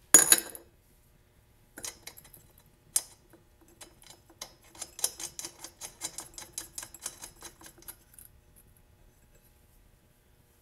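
A sharp metallic clatter, then a quick, rhythmic run of small metal clicks, about four or five a second, for several seconds. These are hands fitting the flywheel nut and the parts on the flywheel hub onto the crankshaft of a small lawn mower engine.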